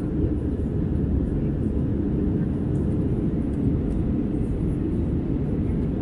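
Steady low rumble of engine and airflow noise inside the cabin of an Airbus A320 airliner in flight.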